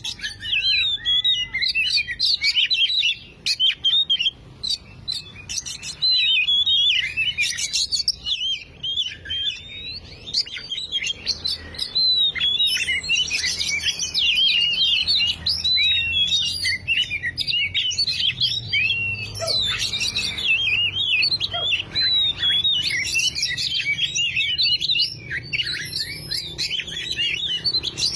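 Oriental magpie-robin (kacer) singing in full voice: a fast, unbroken run of varied, rich whistled phrases and chirps with only brief pauses.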